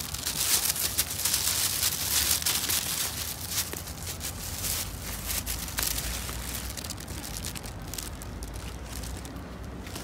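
Dry leaves and brush rustling and crackling as someone moves through vegetation, busiest in the first half and thinning out towards the end.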